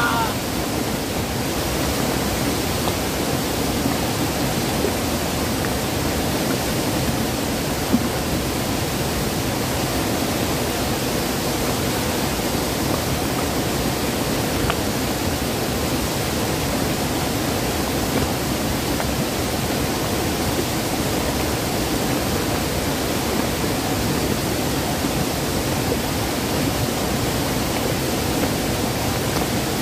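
River rapids: white water rushing over and between boulders, a steady, even rushing noise.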